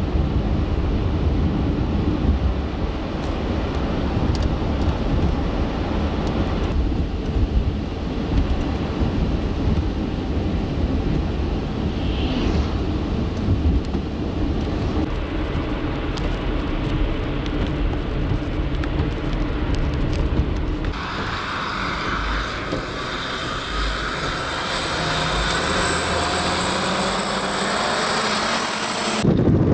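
A vehicle driving on a snow-covered highway: steady low road and wind rumble. About twenty seconds in the sound changes to a hissier one with a high steady whine, as a road-sanding truck's engine runs.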